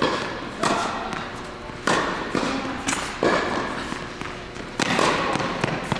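Tennis ball struck by rackets during a groundstroke rally: about five sharp hits, roughly one every second and a half, each ringing on in the echo of an indoor tennis hall.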